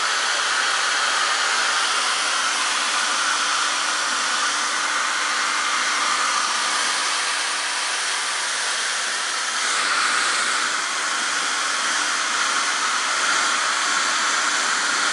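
Hair dryer blowing steadily, switched off right at the end.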